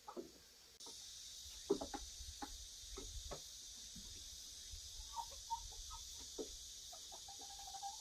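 Chickens clucking softly now and then, with a few sharp taps about two seconds in, over a steady high hiss that sets in about a second in.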